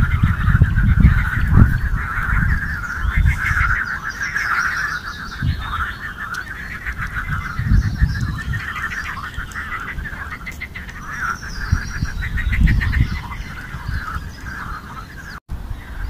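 A continuous, dense chorus of pulsed animal calls from the lake, with birds singing higher up now and then. Gusts of wind buffet the microphone.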